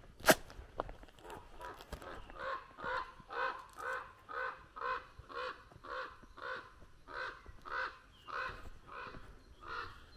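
A sharp click right at the start, then a bird's harsh calls repeated evenly about twice a second.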